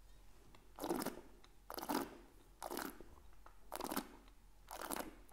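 A wine taster slurping air through a mouthful of red wine to aerate it on the palate: five short slurps about a second apart.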